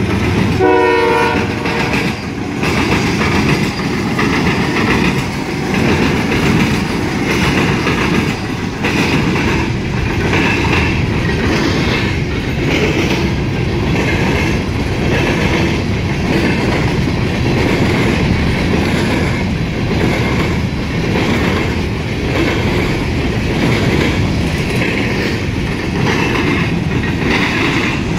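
Diesel freight train passing close by: the locomotives' air horn ends with a short blast in the first second or so. Then the six-unit locomotive lashup and a string of covered hopper cars roll past with a steady rumble and rattle and the clickety-clack of wheels over rail joints.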